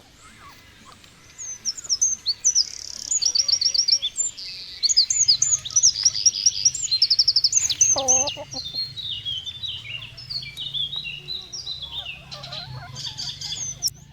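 Small songbird singing a fast, high-pitched song of chirps, quick sweeping notes and rapid trills, loudest over the first half and thinning toward the end. A short lower call cuts in once, about eight seconds in.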